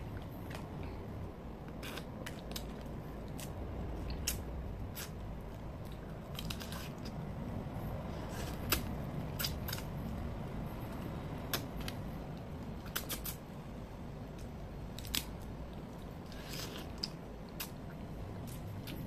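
Cooked crab being pulled apart by hand and eaten: irregular sharp clicks and cracks of shell breaking, with chewing, over a steady low rumble.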